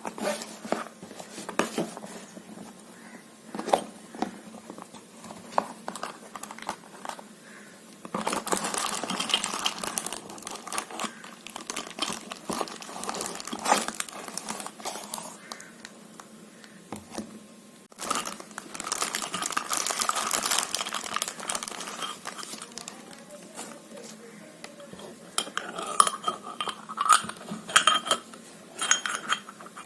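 Small metal pieces of a miniature pressure cooker clinking and tapping as they are handled, with two longer stretches of rustling handling noise and a quick run of bright clinks near the end.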